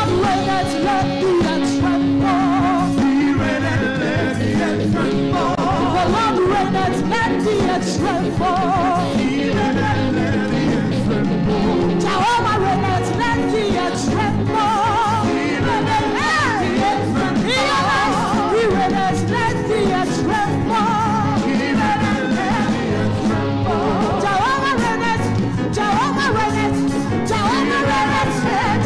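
Worship music: a band playing with voices singing over it.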